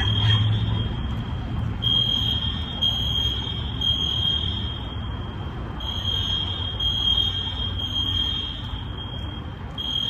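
Building fire alarm sounding: a high, piercing tone pulsing in roughly one-second beeps, with longer pauses between groups of beeps.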